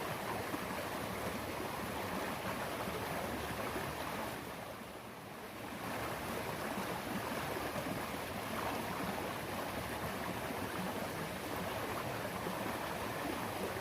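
Steady rush of flowing stream water, briefly quieter about five seconds in.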